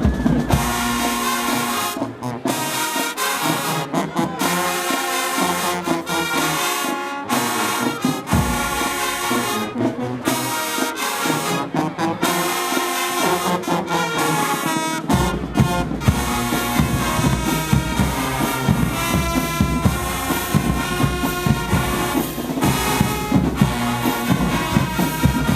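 Marching band horn section playing a tune, trumpets and trombones in full, stacked chords. The low end drops out for much of the passage and fills back in, loud and full, about fifteen seconds in.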